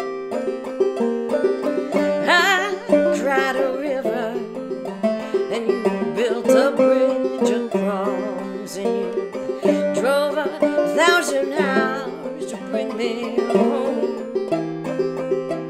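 A banjo played steadily as accompaniment, with a woman's voice singing long held notes with vibrato over it at several points.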